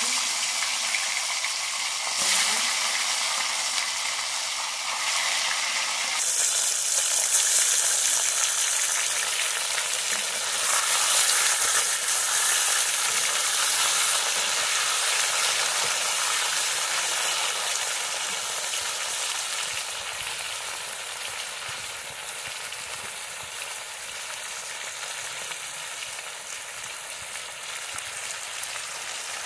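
Turmeric-coated rohu fish pieces frying in hot oil in a kadai: a loud, steady sizzle. It gets louder about six seconds in and slowly eases off over the second half.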